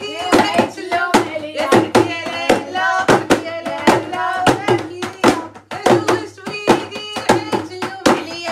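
Festive singing with many sharp hand claps throughout.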